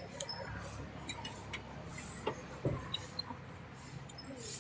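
Faint low rumbling background noise with scattered small clicks and ticks, heard through a phone video call.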